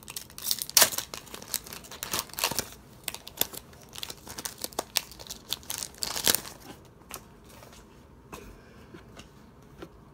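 Foil wrapper of a Pokémon card booster pack torn open and crinkled by hand: dense crackling and ripping for about six seconds, then dying down to a few faint rustles.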